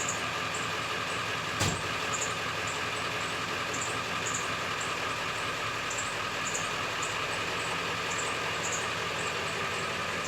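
A car engine idling steadily, with a light ticking about twice a second and a single sharp click about a second and a half in.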